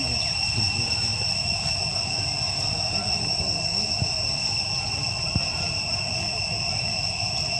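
Insects droning in one steady high-pitched tone, with a low rumble underneath. A few faint clicks come around the middle.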